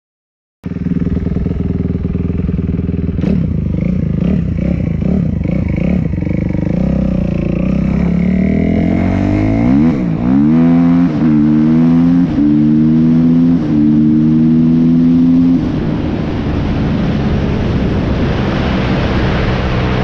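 2005 Suzuki RM-Z250's single-cylinder four-stroke engine, ridden on a dirt track. The revs climb about halfway through, then hold in several short steady pulls with brief dips between them. Near the end it eases off while a rushing noise grows.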